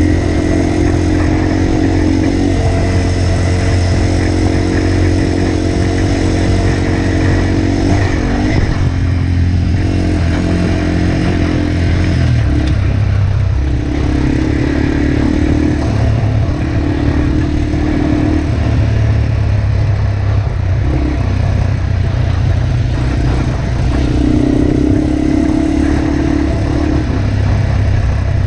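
Yamaha TW200's 196 cc single-cylinder four-stroke engine running under way on a dirt trail, with a steady note for the first several seconds. About a third of the way in the note changes, and from there it rises and eases off in repeated spurts of throttle.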